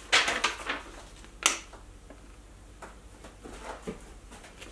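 Handling noises as a paper cutout and a mug are held and moved: a short rustle at the start, one sharp tap about a second and a half in, then a few faint rustles and taps.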